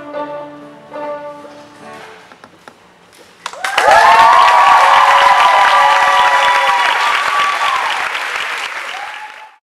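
Young students' violin ensemble playing a quiet tune, then from about three and a half seconds in loud applause with cheering from the audience, which fades out near the end.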